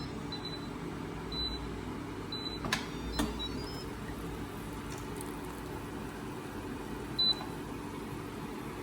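Short high electronic beeps from an Instant Pot's control panel, about four single beeps spread out with a quick rising run of notes in the middle, and a couple of sharp clicks, over a steady low hum.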